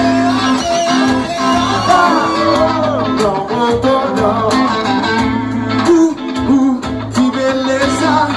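Live band music led by electric guitars over a steady, repeating bass line, with sharp percussive hits and a voice singing over it.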